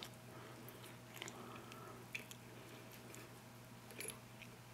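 Faint clicks and handling noise of a brass Schlage Everest lock cylinder as its plug is pushed back into the housing, a few small clicks scattered through it, the clearest about four seconds in.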